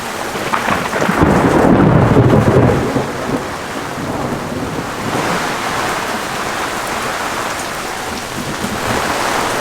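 Heavy rain falling steadily, with a low rumble of thunder about a second in that lasts roughly two seconds.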